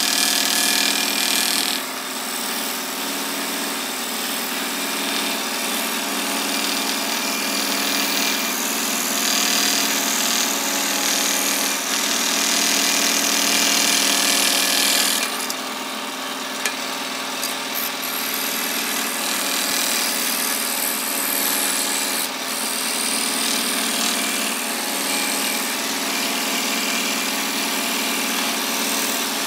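Electric scroll saw running steadily, its thin blade moving up and down as it cuts curved lines through a wooden board.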